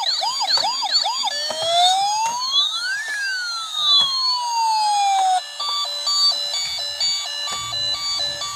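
Electronic siren of a battery-powered toy fire rescue truck cycling through its sounds: a fast repeating yelp, then one slow wail rising and falling, then a stepped, beeping pattern of alternating tones for the last few seconds.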